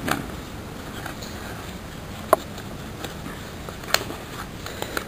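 Folded paper rustling softly as a partly folded origami model is turned and pressed in the hands, with two sharp clicks, a little over two seconds in and about four seconds in.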